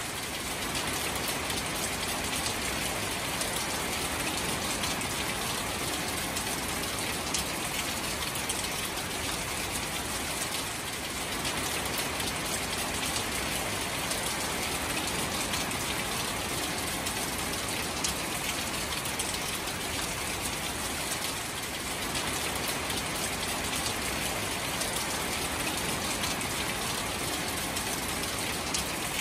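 Steady rain falling on shallow standing water and marsh grass: an even patter of countless drops hitting the water surface.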